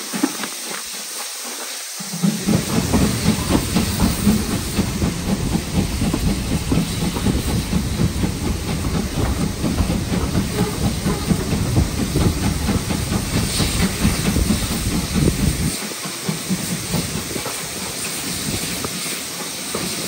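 Steam locomotive hissing steam steadily. A heavy low rumble of railway movement joins it about two seconds in and cuts off sharply a few seconds before the end.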